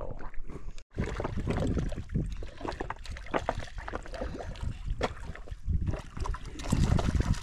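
Wind rumbling on the microphone aboard a fishing kayak, with scattered clicks and knocks from gear being handled and faint water sounds.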